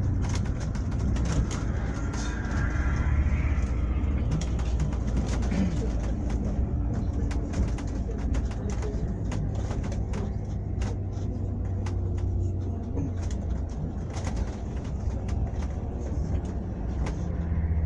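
Vehicle ride on the way to the plane: a steady low rumble with frequent clicks and rattles.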